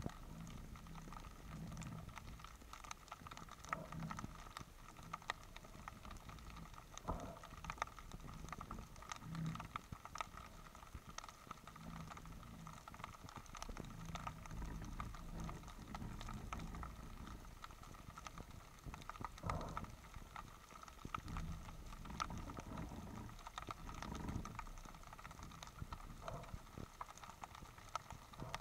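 Underwater ambience of shallow sea water picked up by an action camera in its housing: a low rush with scattered sharp clicks and crackles.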